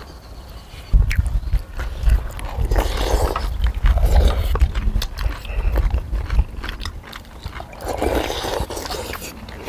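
Several people loudly slurping and chewing noodles and beef broth, with swells of slurping about three seconds in, again a second later, and near the end. A low rumble runs under the first two-thirds.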